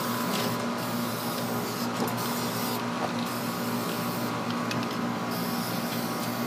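Aerosol can of enamel spray paint hissing in long bursts with short breaks, coating a sanded, rusty filter drier. A steady low hum runs underneath.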